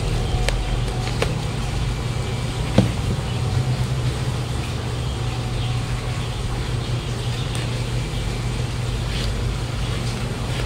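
A few light taps and clicks from a plastic flowerpot and potting soil being handled, with one sharper click about three seconds in. Under them runs a steady low hum of urban traffic.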